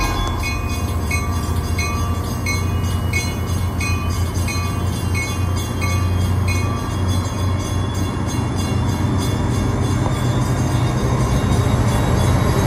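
CTrail passenger train's stainless-steel coaches rolling past close by with a steady low rumble, growing louder near the end. A bell rings about twice a second over it and stops about seven seconds in.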